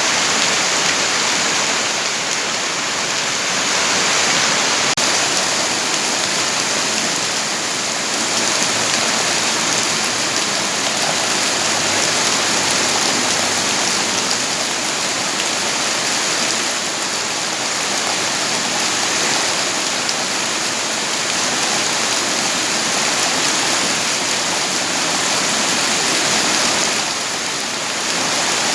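Steady rainfall: an even, unbroken hiss of rain with slow gentle swells in loudness.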